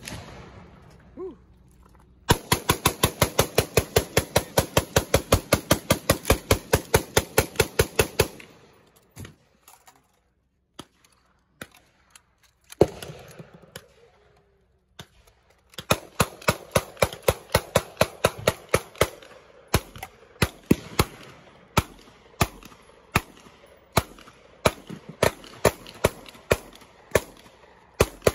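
Gunfire from an AR-style rifle: a fast string of about forty shots in six seconds, then a few scattered single shots, and from about sixteen seconds in another long run of shots at an uneven pace.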